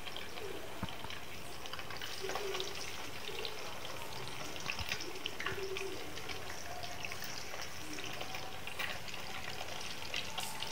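Marinated chicken leg piece deep-frying in hot oil in a pan: a steady sizzle with frequent crackles and pops.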